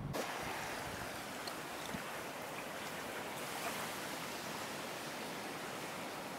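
Steady shoreline ambience of gentle waves washing on a lagoon beach.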